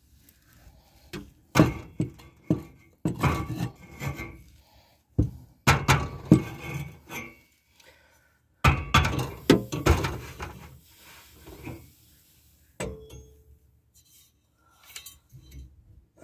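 Metal exhaust pipe and coupling sleeve being handled and fitted: irregular clanks, knocks and scraping in several bursts, with a short metallic ring toward the end.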